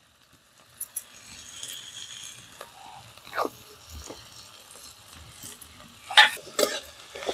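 Onion and capsicum frying in oil in a metal wok over a wood fire, a faint steady sizzle with scattered small clicks. About six seconds in, a metal spatula scrapes and clinks against the wok a few times as the mix is stirred.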